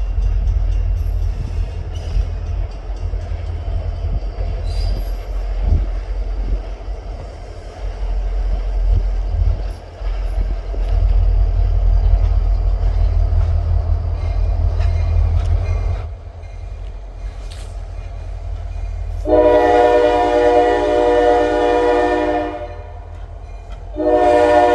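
Freight train rolling past with a low rumble and scattered clicks, which fades after about 16 seconds. Then a diesel locomotive's multi-chime air horn sounds one loud blast of about three seconds, and a second blast begins just before the end.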